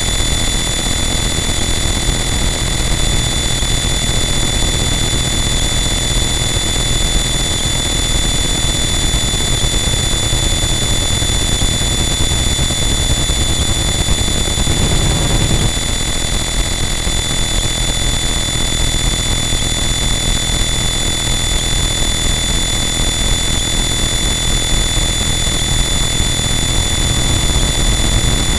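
Harsh noise wall: a dense, unchanging wall of distorted static with steady high whines running through it, and a brief low surge about fifteen seconds in.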